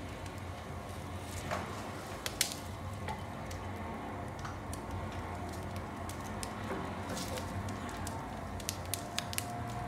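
Firewood burning in a wood stove: a steady low rumble with sharp crackles and pops, a few about two seconds in and a quicker cluster near the end.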